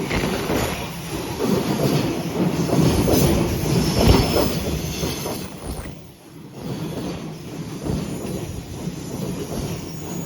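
Freight train of an EF210 electric locomotive and two Koki 200 container wagons passing close by: wheels rumbling and clacking over the rails, with a thin high squeal in the middle. The noise drops away sharply about six seconds in as the train clears, leaving a quieter fading rumble.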